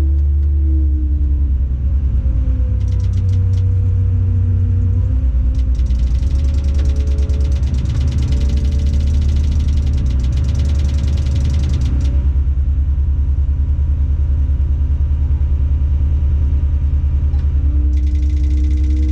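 Tadano 180G-5 crane's diesel engine running, heard from inside the operator's cab as the hydraulic controls are worked. The engine speed drops about a second and a half in and comes back up near the end. A rapid ticking joins it for several seconds in the middle.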